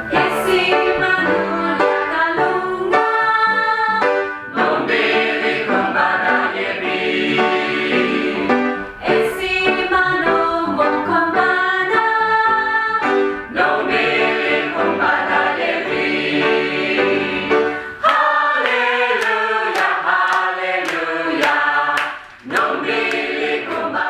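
A mixed choir of young voices singing together in harmony from sheet music.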